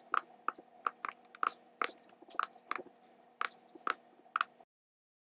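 Irregular run of sharp computer mouse clicks, about four a second, over a faint steady hum, cutting off to dead silence near the end.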